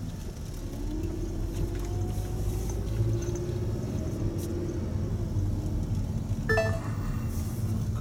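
Engine and road rumble inside the cabin of a Honda Odyssey minivan as it pulls away and drives on. The engine note rises slightly in the first few seconds, then holds steady.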